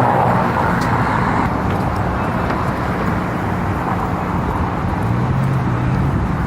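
Street traffic: a steady wash of cars passing, with a low engine hum underneath.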